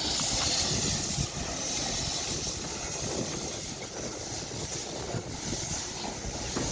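Old steam locomotive: steam hissing strongly for about the first second, then easing off under steady noise from the train.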